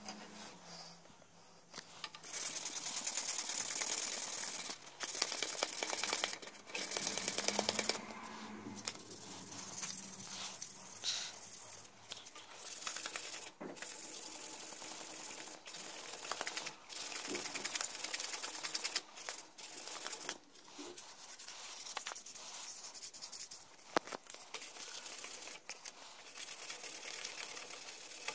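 A small bone needle blank being scraped and rubbed by hand with sandpaper: a dry rasping in quick strokes, loud and nearly continuous for several seconds near the start, then quieter stop-start strokes, with one sharp click about three quarters of the way through.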